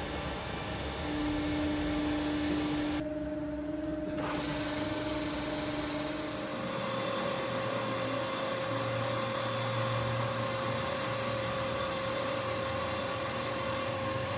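Vertical milling machine running, its spindle driving a cutter into the valve openings of a tractor cylinder head: a steady motor whine whose pitch steps up about halfway through.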